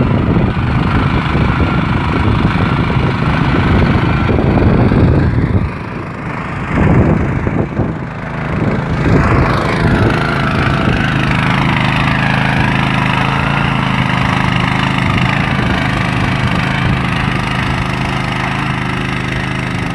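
Small single-cylinder engine of a walk-behind mini power tiller running while its tines churn soil. The sound is rough and uneven for the first few seconds, dips briefly twice, then settles to a steady engine note.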